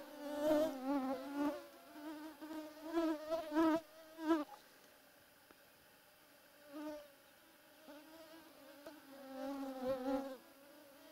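Mosquitoes whining close to the microphone, a thin buzzing tone that wavers in pitch as they fly about. It is loud for the first four seconds or so, then drops away and comes back more faintly twice.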